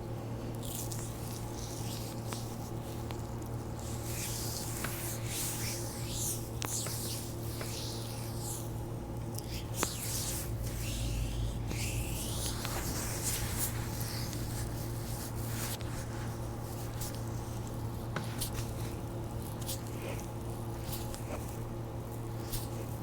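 Hands kneading and rubbing a bare foot during a deep-pressure massage: irregular soft swishes of skin sliding on skin, over a steady low hum.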